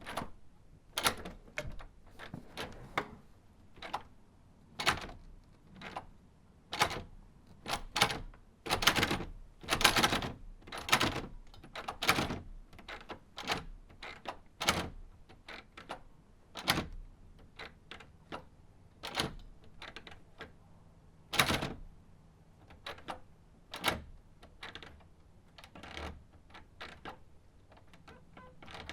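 Classroom door being worked over and over: a long run of sharp clicks and knocks from its latch and handle at uneven intervals, some louder than others.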